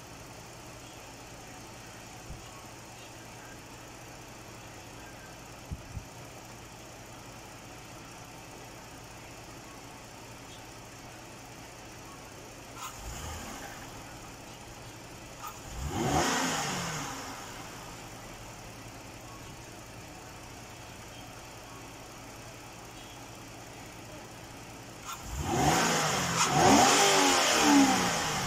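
Mazda CX-9 engine idling steadily, then revved: a small blip about halfway, a fuller rev a few seconds later, and a run of quick revs near the end, each rising and falling in pitch.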